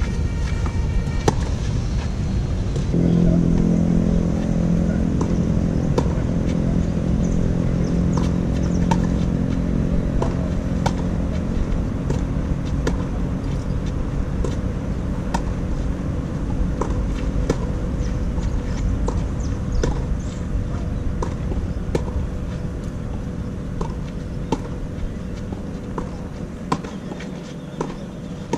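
Tennis ball being hit back and forth on a clay court: sharp racket-on-ball pops at roughly one a second. A low engine hum sets in about three seconds in and fades away past the middle.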